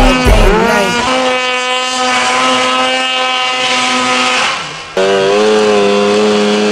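Snowmobile engines running at high revs in deep snow. One sled's engine holds a steady high pitch for several seconds, fades briefly, then about five seconds in the sound cuts abruptly to another sled running at a slightly lower, wavering pitch.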